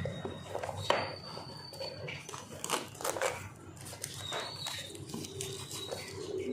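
Smartwatch box and packaging being handled: irregular rustles, taps and clicks, loudest about a second in and around three seconds in.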